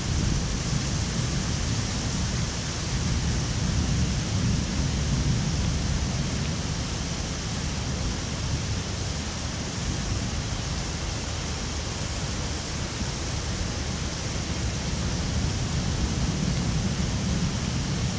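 Heavy rain falling during a thunderstorm: a steady, even hiss with a low rumble underneath.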